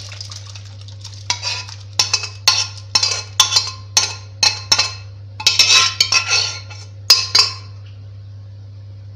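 Boiled rajma and their cooking liquid poured from an aluminium pressure cooker into a kadai of gravy. After about a second this gives way to a quick, irregular series of sharp metal clinks and scrapes as the cooker and a spoon knock against the pans, stopping a second or two before the end.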